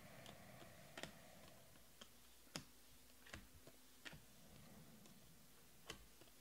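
Glossy Prizm trading cards clicking against each other as they are flipped one by one from a stack: about seven faint, sharp clicks at irregular intervals.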